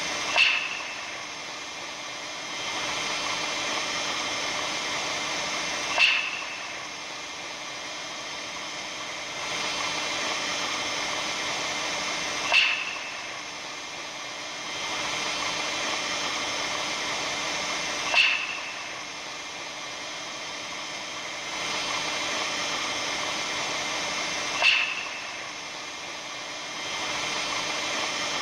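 Looped recording presented as the sound of the aurora borealis: a steady hiss with faint steady tones, broken about every six seconds by a short, sharp crackle, five times.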